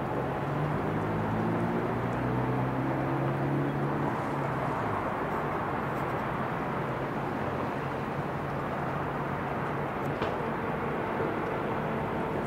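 Steady hum of distant city traffic, with a vehicle engine's drone over the first few seconds that rises slightly in pitch and then fades out.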